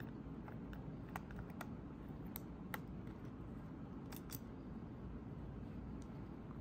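Small, sharp clicks and taps of a screwdriver tip and plastic key fob parts being handled, scattered through the first three seconds, with a close pair just after four seconds. Behind them is a low, steady hum.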